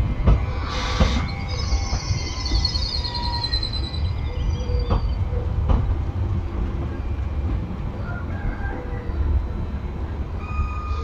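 Regional passenger train running out of the station on the platform track: a steady low rumble, with high squealing tones from the wheels during the first few seconds and a few sharp clicks along the way.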